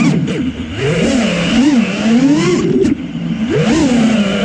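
FPV quadcopter's brushless motors and 4.9-inch props whining as it flies, the pitch swooping up and down with the throttle. There are brief dips where the throttle is chopped, about half a second in and again about three seconds in.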